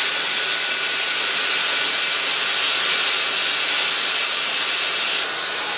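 Steady hiss of a Bridgeport Torq-Cut TC4G CNC mill running while its tool carousel turns to find its home position. The upper part of the hiss drops slightly near the end.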